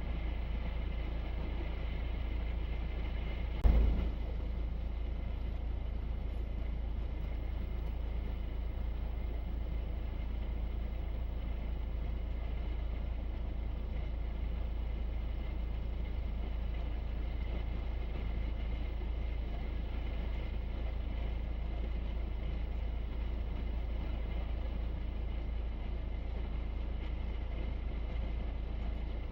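Steady low rumble of a four-wheel-drive truck driving, with a single sharp knock about four seconds in.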